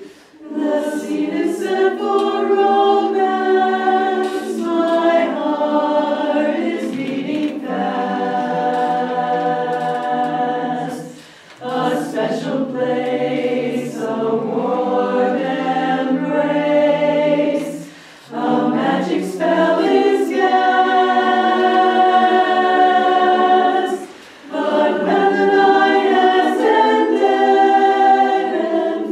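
Women's chorus singing a cappella in harmony: long sustained phrases, with three short breaks for breath about every six seconds.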